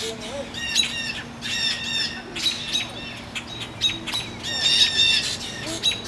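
Songbirds giving repeated alarm calls in short runs of three or four, about once a second: scolding a hawk that is feeding on a kill nearby.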